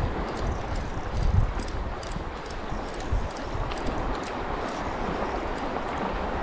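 Wind buffeting the microphone with a low, uneven rumble, over shallow seawater sloshing around a wading angler, with scattered light ticks.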